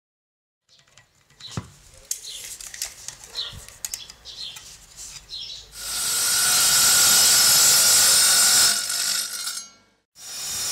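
Light handling knocks and scrapes, then a bench-mounted circular saw cutting a concrete decorative stone tile: a loud, steady cut with one steady tone running through it, which winds down and stops. Near the end another power tool starts up.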